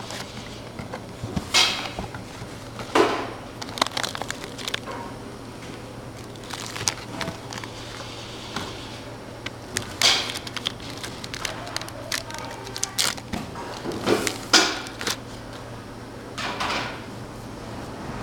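Cardboard box and its packaging being opened and handled: irregular rustles, scrapes and light knocks, a few louder than the rest.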